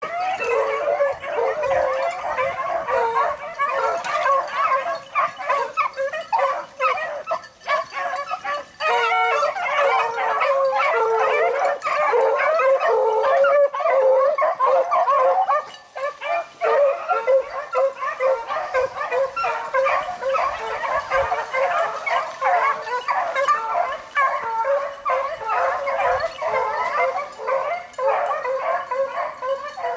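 A pack of beagles baying in full cry as they run a rabbit's trail, many voices overlapping almost without a break and easing briefly about halfway.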